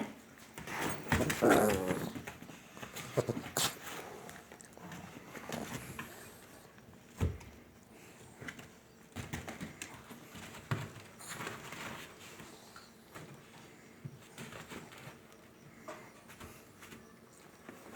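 Small dogs vocalising in a small room, loudest in a burst about a second in. Scattered quieter sounds and a sharp knock about seven seconds in follow.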